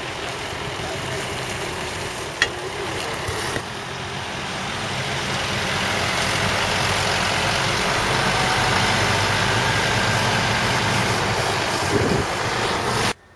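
Heavy-haul truck's diesel engine running as the tractor unit slowly pulls a low-loader trailer carrying a tram car, getting louder as the truck comes close past. There is a single sharp click a couple of seconds in, and the sound cuts off suddenly near the end.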